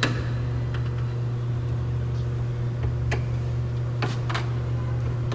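A steady low mechanical hum, with a few light clicks and taps as a Phillips screw is worked out of a car door.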